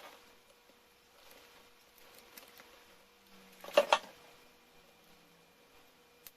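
Small clicks and one sharp clatter about four seconds in, from hands working on laptop parts during reassembly, over a faint steady hum.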